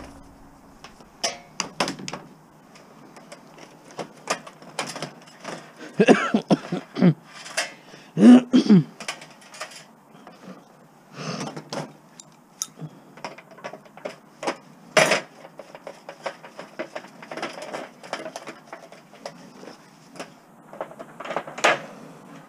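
Scrap metal parts being handled and taken apart by hand: an irregular string of clinks, taps and knocks, with two short squeaks about six and eight seconds in.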